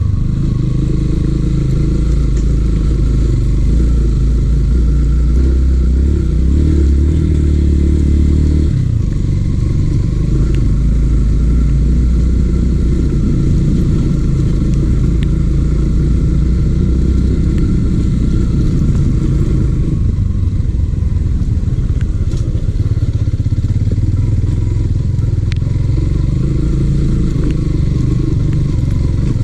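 Yamaha XTZ150's single-cylinder engine running as the motorcycle is ridden, its note shifting about nine seconds in and again around twenty seconds in.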